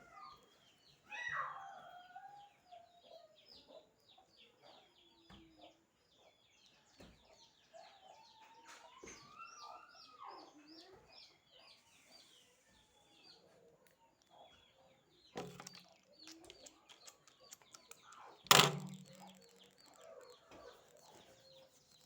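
Birds chirping over and over, with a single loud knock about eighteen seconds in.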